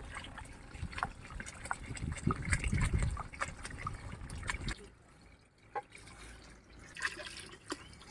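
Water poured from a small tumbler into a large aluminium pot of chicken masala gravy, splashing and trickling into the liquid with small clicks. The pouring stops about five seconds in, leaving only a few faint ticks.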